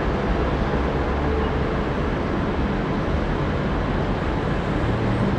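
Steady city street traffic noise: the mixed rumble of car and motorbike engines and tyres, with a low engine hum growing stronger near the end.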